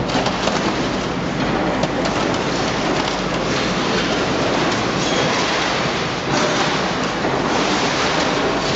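Heavy car-wrecking machinery at work: a loud, dense, steady noise of grinding and crunching scrap metal.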